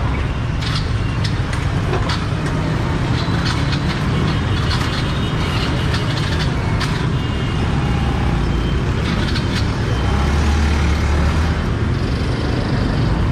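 Motorbike engines and traffic make a steady low rumble, swelling slightly near the end, with scattered short clicks and rattles over it.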